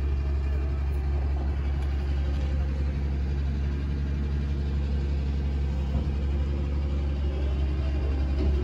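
Steady low rumble of a Boeing 777-300ER's GE90 jet engines at climb power, heard from the ground as the airliner climbs away after takeoff.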